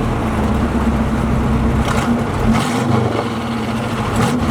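Corvette Stingray V8 running through its side-exit exhaust pipes on the move, a steady low engine note with a brief drop in the lowest part a little over halfway through.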